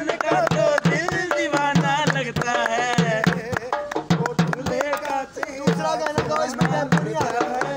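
Dhol barrel drum played in a steady rhythm, deep thumps from the bass head under sharp slaps from the treble side, with voices singing along.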